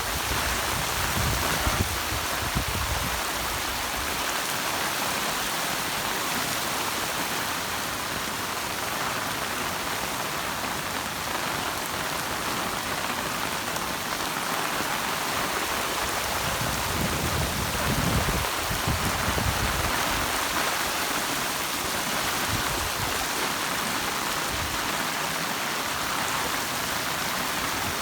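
Heavy rain falling steadily, a dense even hiss of rain on surfaces. Low rumbles break in near the start and again about two-thirds of the way through.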